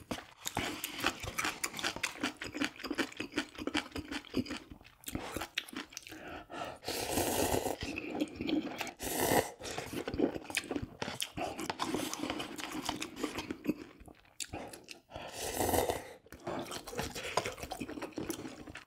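Close-miked eating sounds: wet chewing with rapid clicks and crunches as noodles, gimbap and kimchi are eaten, broken by a few longer slurps of ramyun noodles or broth.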